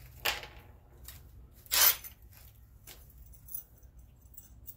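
Brief clinks and knocks of small metal pieces being handled, the loudest a short rattle near two seconds in.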